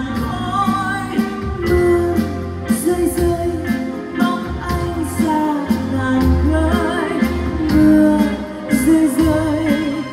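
Live band music: a wavering melodic lead over a bass line and a steady drum beat.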